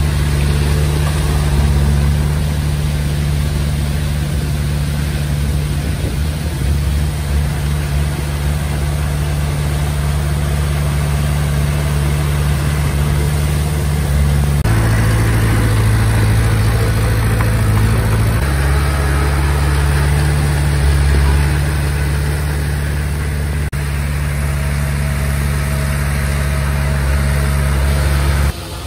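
Komatsu D20P bulldozer's diesel engine running steadily while it works, its note changing for a few seconds about halfway through, then settling back.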